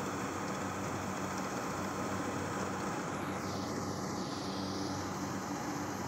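Crawler rice combine harvester running steadily as it harvests, a low engine hum under an even mechanical hiss. About halfway through, the hiss briefly takes on a sweeping, whooshing quality.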